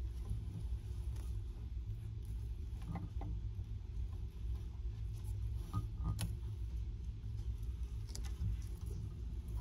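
Yellow-headed monitor lizard eating quail eggs: a few sharp, scattered clicks and crunches of jaws and eggshell over a steady low rumble.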